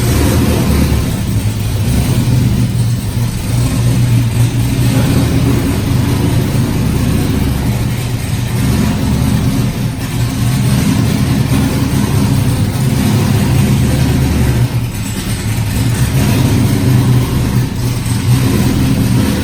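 Car engine running loudly with a steady low note, dipping briefly twice near the end.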